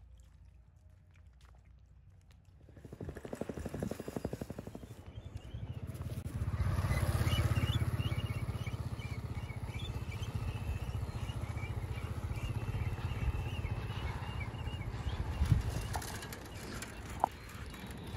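Motorcycle engine running, picking up about three seconds in and loudest a few seconds later, with short high chirping calls over it.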